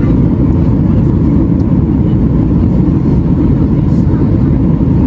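Steady low rumble inside the cabin of a Boeing 737 MAX 8 airliner in flight: the drone of its CFM LEAP-1B engines and the rush of air past the fuselage, unchanging throughout.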